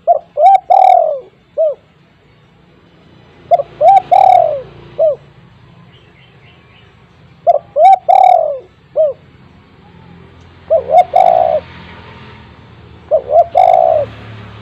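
Spotted dove cooing: five phrases about every three to four seconds, each two or three short coos followed by a longer drawn-out coo and sometimes a short final note.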